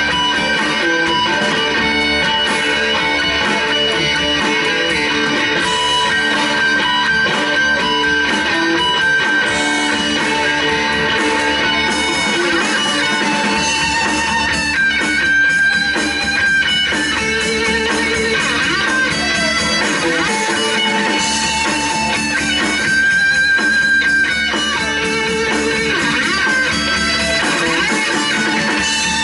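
Live instrumental rock from an electric guitar, bass and drums trio, played loud and steady, with the guitar holding long notes over the band.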